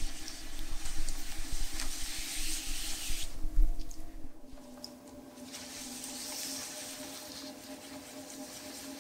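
Wet hands rubbing and pressing clay as it is centered on a spinning electric pottery wheel, over the wheel's steady hum. The rubbing breaks off for about two seconds in the middle, when the hands lift away, then picks up again more softly.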